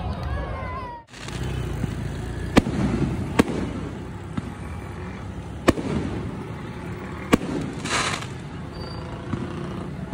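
Aerial fireworks going off: a few sharp bangs a second or two apart over a steady outdoor background, with a short hissing burst near the end.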